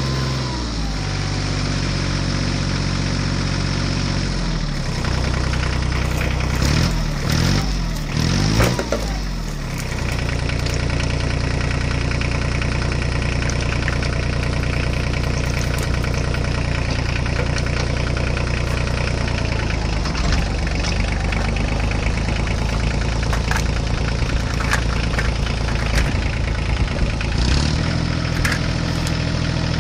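Homemade mini tractor running, a steady engine-like drone that wavers and rises in pitch between about six and ten seconds in as it hauls an overloaded trolley. The drone changes tone about twenty seconds in and steadies again near the end.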